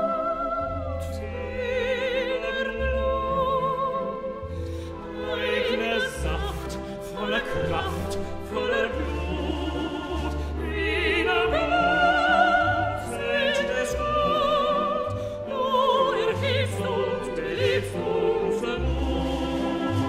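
Operatic singing with strong vibrato, by soprano and tenor voices, accompanied by a small classical orchestra of strings with bass notes underneath.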